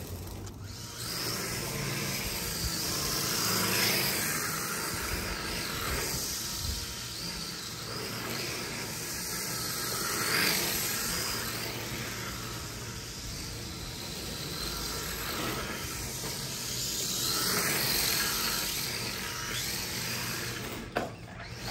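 Electric RC drift cars sliding on concrete, their hard drift tyres hissing as they scrub across the surface. The sound swells and eases every few seconds as the cars pass and turn.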